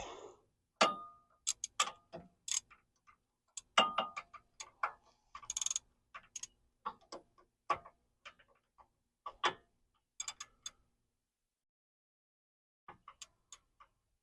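Metal tools clinking and tapping irregularly as a crow's foot wrench is worked onto a power steering hose fitting, with a few sharp ringing clinks and a quick run of clicks about halfway through; it falls mostly quiet near the end.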